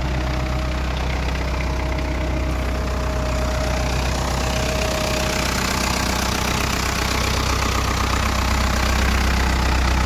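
Ford 6610 tractor's four-cylinder diesel engine running steadily at idle, with the rear PTO engaged and turning. A faint steady whine fades out about halfway through.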